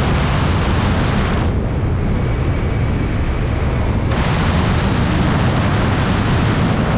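Wind buffeting the camera's microphone during flight under a parachute canopy: a steady low rumble with hiss on top. The hiss eases about one and a half seconds in and comes back just after four seconds.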